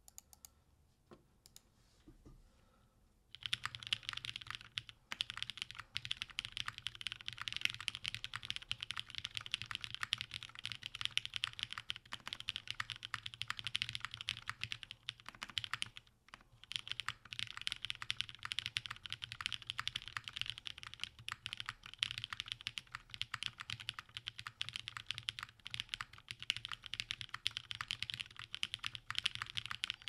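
Typing on a gasket-mounted Hyphen mechanical keyboard with lubed Kailh Brown-stem switches in MX Black housings, an aluminium half plate and GMK doubleshot ABS keycaps. A few single key presses first, then fast continuous typing from about three seconds in, with a brief pause around the middle.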